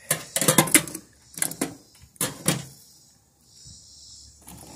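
Clattering and knocking of a stripped microwave oven's sheet-metal casing and parts being handled, in a few short bursts over the first two and a half seconds, then quiet.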